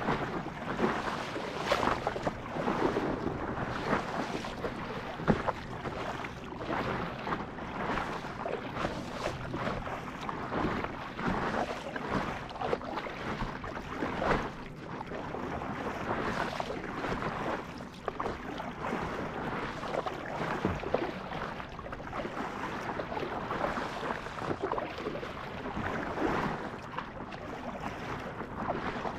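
Water splashing and lapping against a paddle board as a double-bladed paddle dips in and out, with wind buffeting the microphone.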